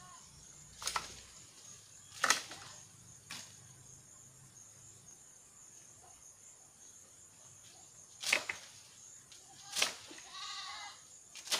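A long bamboo pole striking the branches of a hog plum tree to knock down the fruit: about six sharp knocks, spaced irregularly.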